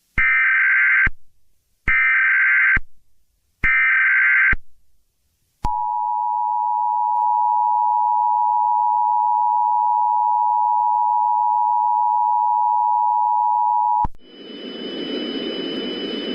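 Emergency Alert System alert: three short bursts of the digital SAME header data, each just under a second, then the steady two-tone EAS attention signal held for about eight seconds. It cuts off abruptly near the end into a hissing background with a faint steady whine.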